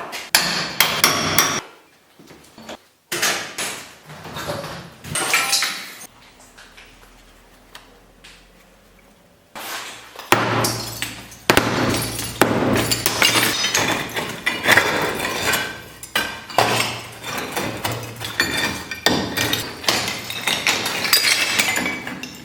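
Demolition hammering on brick and plaster: sharp strikes, a lull about six seconds in, then from about ten seconds in a dense, rapid run of strikes over a steady low hum.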